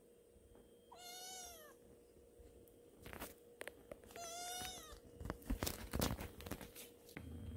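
A white kitten meowing twice, short high cries that fall in pitch, about three seconds apart. After the second meow comes a flurry of sharp clicks and thumps, the loudest sound, as the kitten comes up against the phone.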